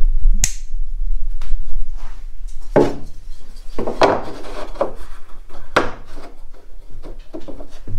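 A small wooden block pressed and shifted by hand against the plywood hull while being test-fitted, wood scraping and knocking on wood about five times at irregular intervals, over a low steady hum.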